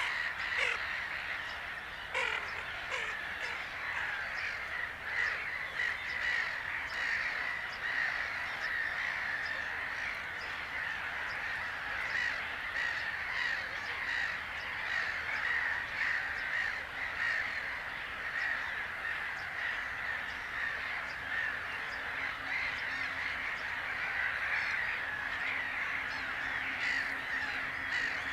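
A flock of birds calling continuously, a dense chorus of many overlapping harsh calls.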